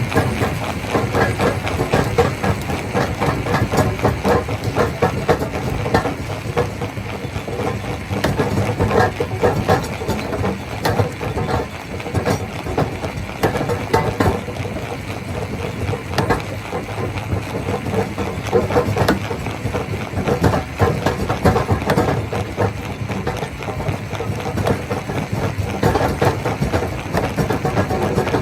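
Rock crusher machine running: a steady mechanical drone with dense, continuous clattering and knocking of stones being broken.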